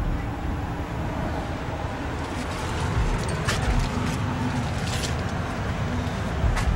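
Steady low outdoor rumble of road traffic, with a few short clicks.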